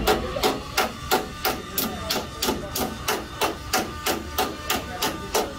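A hammer tapping a car's sheet-metal body panel to work out a dent, in a steady rhythm of about three blows a second.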